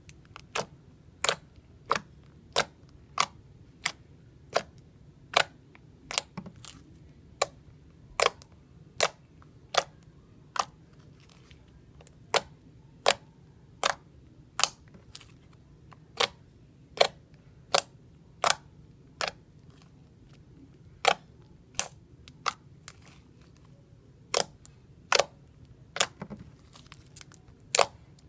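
Homemade borax-and-glue slime being squeezed and stretched, trapped air bubbles popping in a long run of sharp clicks, about one or two a second and unevenly spaced, with a few short pauses.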